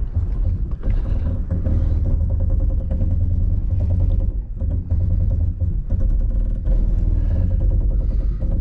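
Inside the cabin of a 4WD vehicle creeping down a steep dirt grade on crawl control: a steady low rumble overlaid by the rapid, even grinding buzz of the crawl control pulsing the brakes, which sounds awful.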